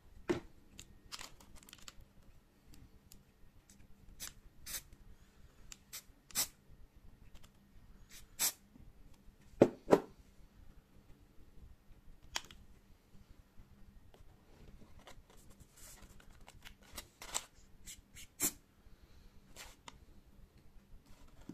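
Scattered clicks, taps and paper rustles of hands handling an aerosol spray paint can and a paper-wrapped camera, with two sharp knocks close together about ten seconds in.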